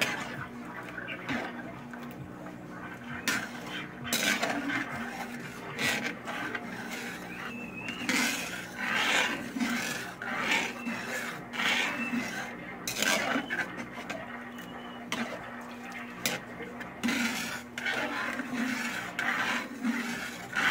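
Metal spoon stirring and scraping around a metal wok of milk, in repeated rasping strokes roughly one a second. A steady low hum runs underneath.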